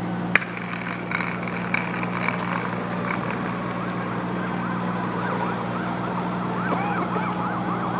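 An emergency vehicle siren in a fast yelp, rising and falling about three times a second. It comes in faintly about three seconds in and grows clearer toward the end, over a steady low engine hum. A single sharp click sounds just after the start.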